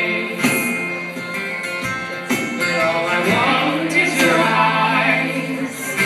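A live folk band playing a song: singing over acoustic guitar and sustained chords, with a few drum hits.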